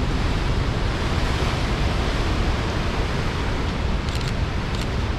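Rough sea surf surging and breaking through the rock chasms below, a steady rushing noise, mixed with wind buffeting the microphone as a low rumble.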